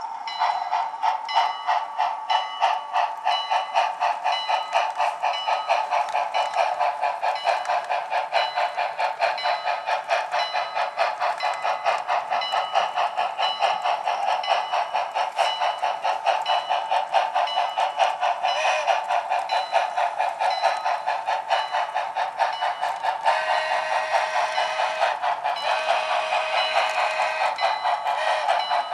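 Model locomotive of Southern Pacific 4436 running on the layout: a fast, even rhythm of clicks over a steady hum. A lower tone comes in and out in short stretches near the end.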